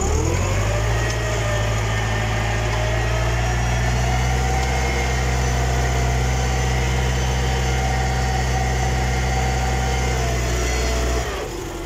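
A 90-hp tractor's diesel engine, heard from inside the cab, rises in revs over the first second as the tractor moves off in second gear. It then runs steadily under heavy load, pulling a subsoiler set to full depth through clay. Near the end the engine note drops and falls away.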